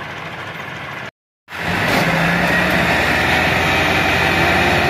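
Massey Ferguson 385 tractor's diesel engine running under heavy load as it strains on a tow chain to pull a stuck, loaded sugarcane trolley, hard enough to lift the tractor's front wheels. After a brief cut about a second in, the engine is louder and held steady at high load.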